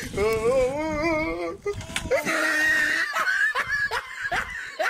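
People laughing and yelling: a long wavering cry in the first second and a half, then repeated short bursts of laughter.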